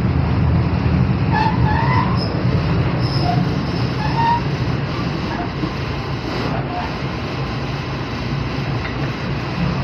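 Passenger train running: the steady low rumble of a railway carriage on the track, with brief scattered squeaks in the first few seconds.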